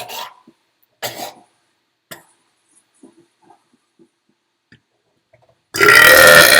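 A very loud, long human burp at a steady pitch, starting about a second before the end and carrying on past it. Before it there are only a few brief, faint sounds.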